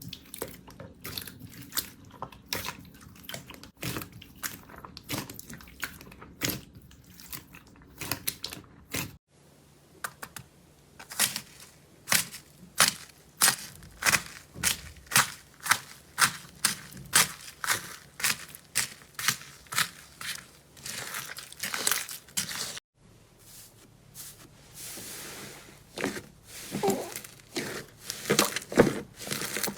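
Hands working slime, making a run of short crackling pops and clicks, about two a second through the middle. The sound changes abruptly about nine seconds in and again near the end of the middle stretch, as a different slime takes over.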